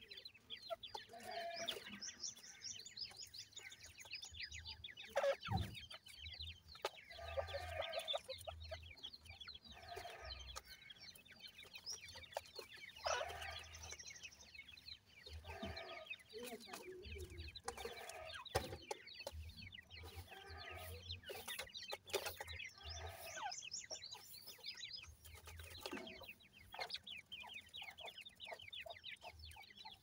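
Grey francolins, adults with chicks, calling continually: a stream of fast, high chick cheeps with lower calls now and then. A few sharp taps stand out above them.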